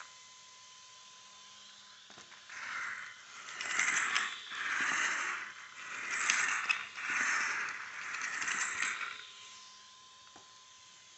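HPI Savage XS RC monster truck drivetrain run in about six short bursts, each with a grinding, scraping noise. The source of the grind is not known. A faint steady high tone runs underneath.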